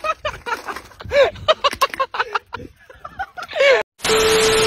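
A person's voice in short bursts. About four seconds in, it cuts to a burst of TV-static hiss with a steady beep tone: the glitch transition effect between clips.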